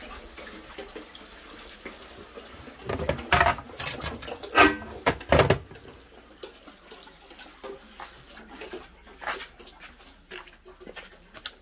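Water running at a stainless-steel kitchen sink, with a burst of loud knocks and clatter in the middle.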